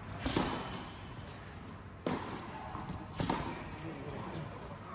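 Tennis ball knocks on an indoor hard court: a few sharp, separate impacts of ball on racket or court, one near the start, one about two seconds in, one a second later and a fainter one near the end.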